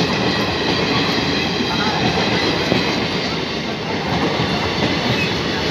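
Train of Indian Railways parcel vans rolling past at slow speed, with a steady rumble and clatter of steel wheels on the rails.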